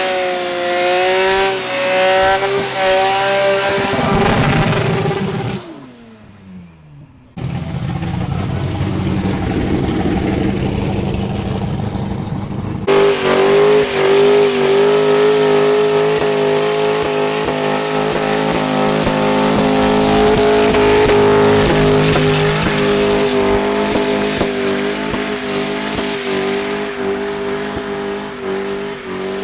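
Car engines held at high revs during burnouts, with tyre-spinning noise. The note wavers at first, drops away for a couple of seconds about six seconds in, then comes back and is held high and steady.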